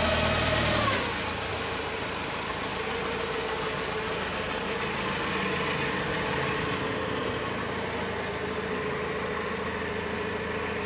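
Forklift engine idling steadily, with a constant droning note; it gets a little quieter about a second in.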